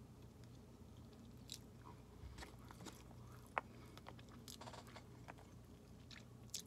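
Faint chewing of a mouthful of instant noodles, with scattered small clicks of a fork working in the plate and one sharper click about three and a half seconds in.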